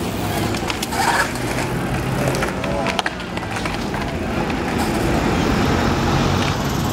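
Busy outdoor ambience: a steady wash of street traffic noise under scattered voices and chatter, with a few sharp knocks.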